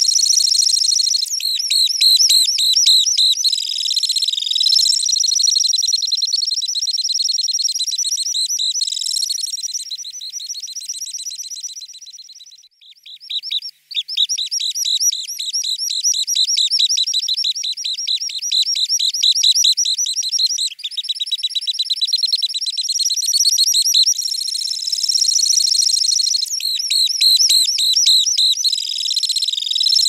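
Temminck's stint singing its display song: a long, high, rapid trill that runs on almost without a pause. It fades and breaks off briefly a little before halfway, then resumes.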